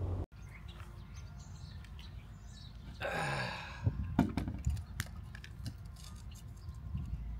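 Wood knocking and clicking as sticks of kindling are handled and struck together, with a few sharp knocks about four to five seconds in. A short breathy sigh comes just before them.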